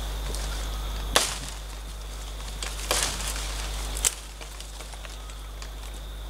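Machete chopping green bamboo stems: three sharp strokes, about a second in, near three seconds and just after four seconds, the first the loudest.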